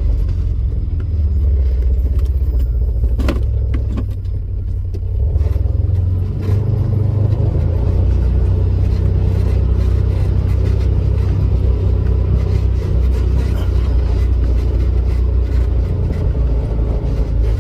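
Steady low rumble of a car driving, with a couple of sharp clicks about three seconds in.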